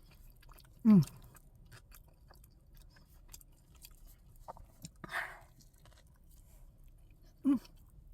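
Close-up chewing of a Shack Burger: wet mouth clicks and smacks. Twice, about a second in and again near the end, there is a short hum of enjoyment that falls in pitch.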